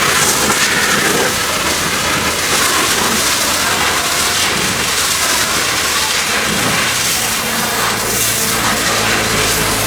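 Pressure washer spraying water, a steady loud hiss with the machine's low hum underneath.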